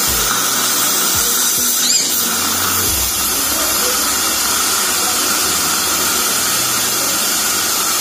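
Dental suction tip running with a steady hiss as it draws sodium hypochlorite irrigant out of the tooth during root canal irrigation, with a brief rising squeal about two seconds in.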